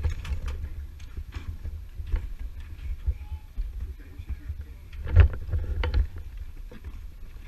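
Low rumble of a helmet-mounted camera jostling as the wearer moves, with scattered sharp clicks and knocks, the loudest cluster about five seconds in.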